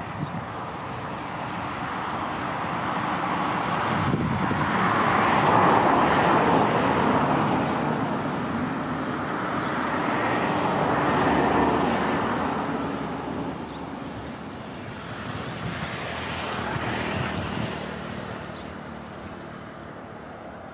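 Road vehicles passing, a rushing noise that swells and fades three times, loudest about a fifth of the way in, over a faint low engine hum.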